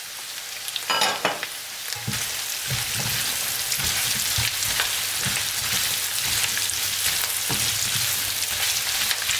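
Chicken, onion and carrot pieces sizzling in hot oil in a frying pan while being stirred with a silicone spoon, with soft knocks from the stirring. The sizzle picks up about two seconds in, after the carrots have gone in.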